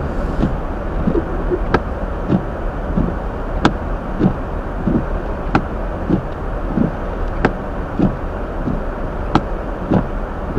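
Steady rumble inside a Hyundai Elantra's cabin on a snowy drive, with a sharp click about every two seconds and softer short thumps in between.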